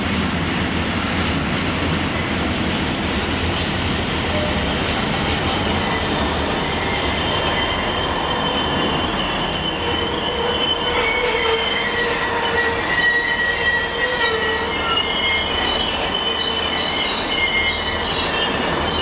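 Long freight train of covered hood wagons rolling past on steel rails, a steady rumble of wheels. From about halfway through, wavering high-pitched metal squealing from the wagons' wheels rises over it.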